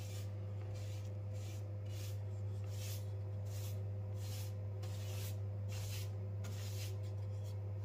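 Flat paintbrush swishing primer onto a rough OSB board in repeated strokes, about two a second, over a steady low hum.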